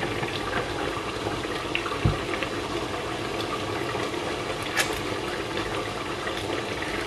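Lamb stew boiling in an open pot with a steady bubbling, plus a couple of light knocks of kitchen utensils being set down and picked up.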